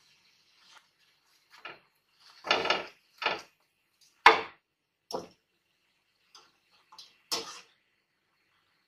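Short, irregular knocks and clinks of a metal spoon against a china plate as fried half-moon pastries are set down on a paper-towel-lined plate, about nine in all, the sharpest about four seconds in.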